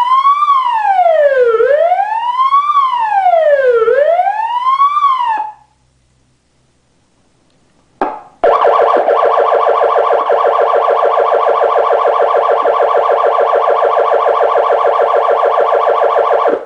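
SHO-ME 30.2108 dash-mount siren amplifier sounding its built-in Wail tone, a tone gliding up and down about every two seconds, which stops about a third of the way in. After a pause and a click it switches to its Yelp tone, a fast up-and-down warble that stops abruptly at the end. These tones are on the circuit board but not wired to any front-panel switch.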